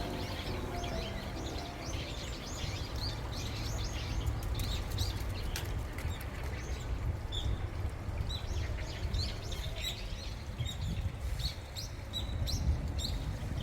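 Small birds chirping, many short high calls overlapping throughout, over a steady low rumble.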